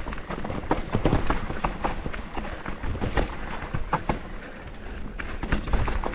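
YT Capra Core 2 full-suspension mountain bike descending a rough dirt trail: tyres rumbling over the ground, with frequent irregular knocks and rattles as the bike hits bumps and rocks.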